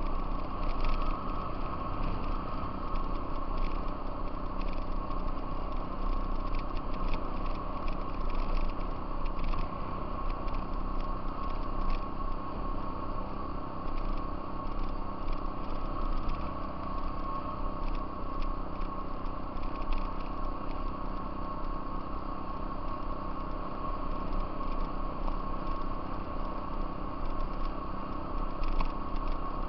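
Off-road vehicle engine running at a steady speed while riding a gravel trail, with a constant high whine over the engine note. Scattered crackles come from the gravel and bumps.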